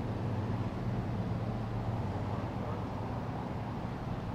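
A steady low engine hum with an even outdoor background noise.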